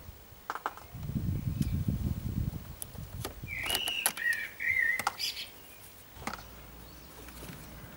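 Small clicks and scrapes of multimeter probe tips and a pin being worked into a car air-flow sensor's wiring connector, with a low rumble of handling about a second in. About halfway through comes a short, wavering high chirp.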